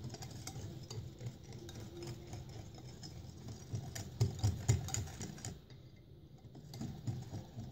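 Wire whisk beating cake batter in a glass bowl: quick, uneven clicking and ticking of the wires against the glass, a little louder about four seconds in and easing off briefly near six seconds.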